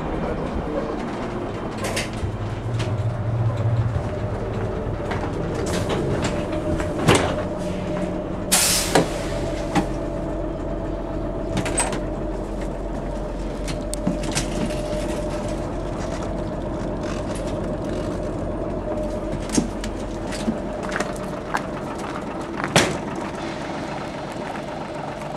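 Leyland O.680 six-cylinder diesel engine of a Leyland Leopard bus running steadily, heard from inside the bus, with scattered rattles and knocks from the body and a short burst of hiss about eight and a half seconds in.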